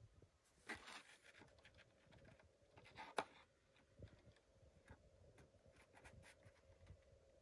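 Near silence: room tone with a faint steady hum and a few faint, short clicks and rustles.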